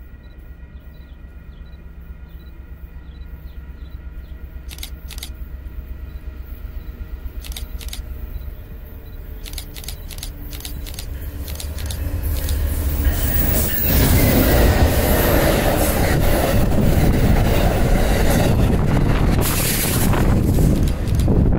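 Amtrak diesel passenger train approaching and passing close by: a low rumble that grows steadily louder, turning about two-thirds of the way in into the loud noise of the locomotive's engine and wheels going past.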